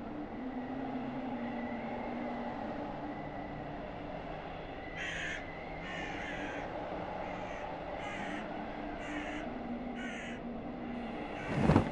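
Crows cawing, six short calls about a second apart, over a low steady drone. A loud sudden burst of sound near the end.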